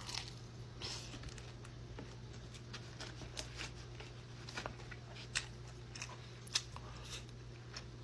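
Close-up chewing of crispy fried chicken wings, with scattered short crunches and wet mouth clicks, a few sharper ones in the second half, over a steady low hum.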